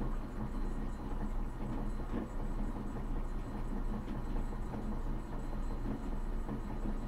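Atlas metal lathe running steadily with its spindle slowed to about 164 RPM: a low, even motor and drive hum with a couple of faint ticks.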